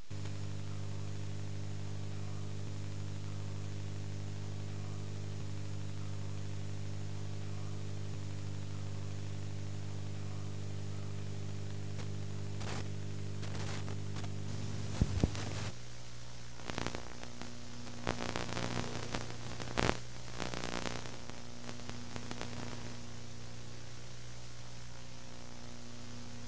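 Low, steady electronic drone of several stacked tones under a hiss of analog static. About fifteen seconds in, a few sharp crackling pops sound and the drone switches to a different, thinner chord, with more bursts of crackle over the next several seconds.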